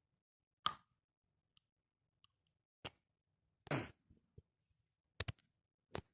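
Handling of drawing tools on a tabletop: a few sharp clicks and taps, two in quick succession late on, with one short scrape about halfway through.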